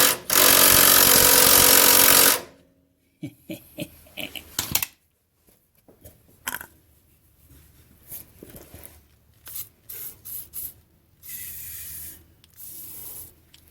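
Aerosol can of penetrating oil sprayed onto rusted bolts to soak them: one long hiss of about two seconds, then scattered clicks and knocks of handling, and two shorter, quieter sprays near the end.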